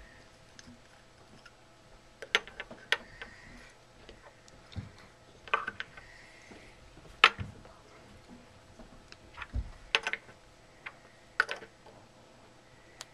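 Plastic cups are set down, lifted and stacked on a wooden table, giving light knocks and clicks at irregular intervals.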